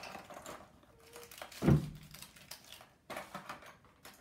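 Small plastic collectibles clicking and clattering as a hand rummages through them in a plastic wipes tub, with one louder thump about a second and a half in.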